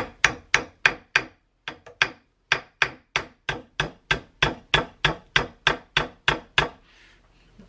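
Small brass-and-nylon-faced hammer tapping pins into a Timney trigger on a Browning X-Bolt action to start them: rapid light taps, about four a second, with a brief pause about a second in, stopping shortly before the end.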